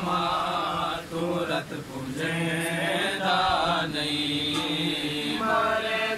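Men's voices chanting a noha, a Shia lament for Husayn, in long held melodic phrases with short breaks between them.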